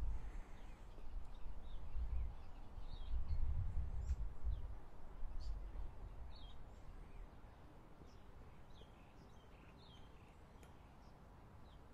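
Birds chirping intermittently in short, quick calls, over a low rumble that fades away about halfway through.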